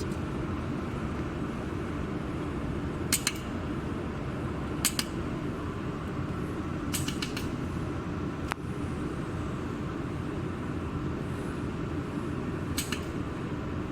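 Jewelry laser welder firing pulses as the foot pedal is pressed: sharp snapping clicks, some in quick pairs, about five times spaced a few seconds apart, over the steady hum of the running machine.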